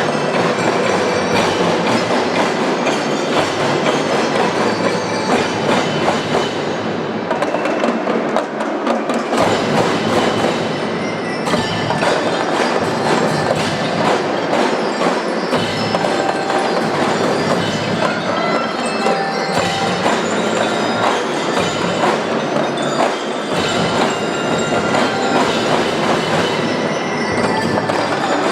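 Marching percussion band playing a dense, continuous clatter of drums, with high bells ringing a tune over it.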